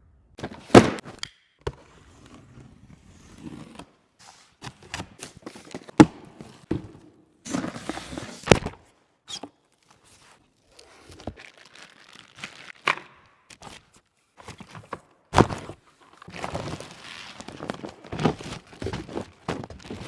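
Irregular thumps and knocks, a few of them sharp and loud, with stretches of rustling between them.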